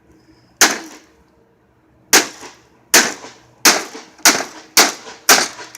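Repeated hard blows striking a broken air conditioner's casing, about eight sharp bangs that come faster and faster, each ringing off briefly.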